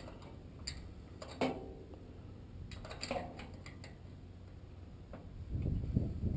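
Scattered light metallic clicks and clinks from hand tools on a furnace blower motor, with handling noise that builds near the end.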